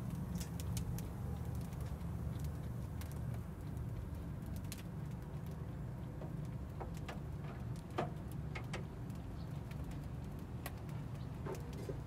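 Metal rotisserie spits loaded with raw whole chickens clicking and knocking as they are set into the oven's racks, a few scattered knocks with the loudest about eight seconds in, over a steady low hum.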